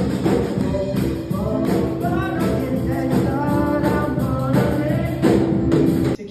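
Gospel music with a band and singing voices, cutting off suddenly near the end.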